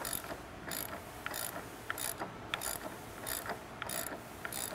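Ratchet wrench clicking in short runs, repeated about every half second, as it turns the locking nut off the top of the strut.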